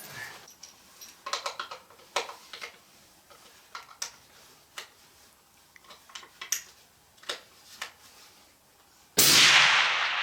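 A few faint clicks and knocks, then about nine seconds in a single loud rifle shot whose report rolls away slowly.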